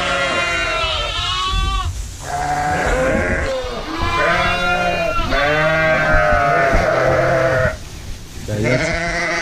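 Sheep bleating over one another in a dense, continuous chorus of overlapping calls, easing briefly about two seconds in and again near the end. These are lambs shut in a creep pen and their ewes calling for each other across the gate.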